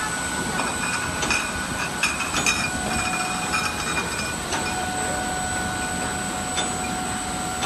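Rotary glass-bottle filling and capping machine running: a steady mechanical clatter with scattered sharp clinks, thickest in the first half, as bottles and parts knock together. Steady whining tones sit over it, and a lower one comes in about halfway through.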